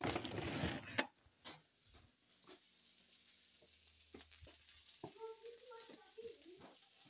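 A burst of rustling and two sharp knocks in the first second and a half, then spicy beef fried rice sizzling faintly in a frying pan on the stove. A faint voice comes in near the end.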